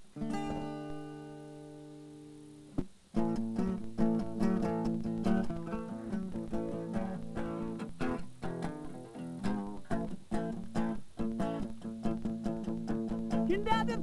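Acoustic guitar: a chord rung out and left to fade for nearly three seconds, then brisk strummed and picked playing carries on steadily.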